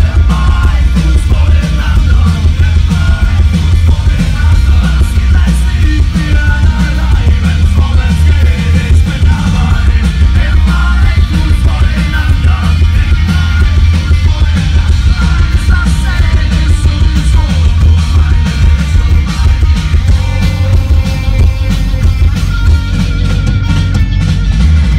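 German rock band playing live at full volume: drums, bass and electric guitar with a shouted, sung lead vocal, very heavy in the bass.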